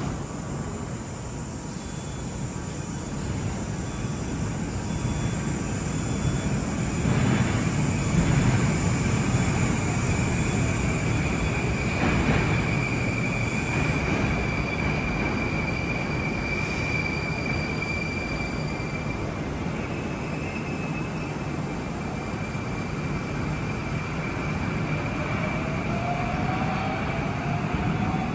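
Metro train running through the station: a steady low rumble that swells about seven seconds in, with a sustained high squealing tone through the middle. Near the end comes a rising whine.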